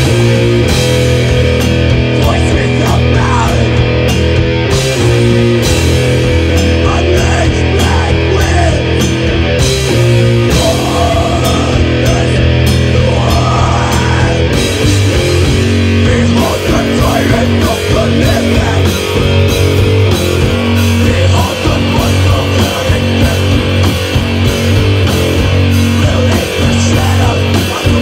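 Live heavy metal band playing loud, with distorted electric guitars, bass and a pounding drum kit.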